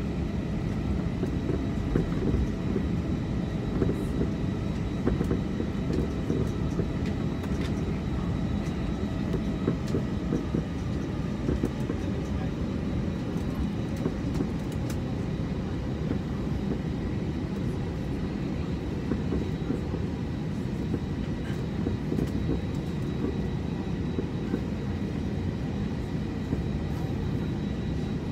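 Airbus A321 cabin noise while taxiing: a steady low rumble from the engines and the wheels rolling over the taxiway, with a faint steady high whine and occasional light bumps.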